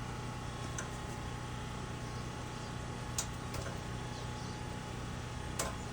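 A few sharp clicks and taps of parts being handled over a steady background hum; the loudest click comes near the end.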